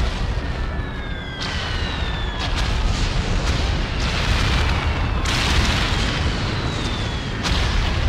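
Battle sound effects: cannon fire going off every second or two over a continuous deep rumble, with falling whistles after several of the shots.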